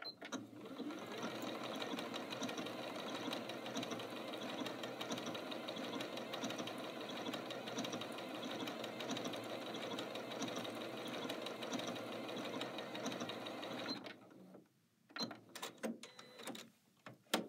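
Janome Skyline 6 computerised sewing machine stitching an overedge stitch at a steady speed, stopping about fourteen seconds in. A few short clicks follow.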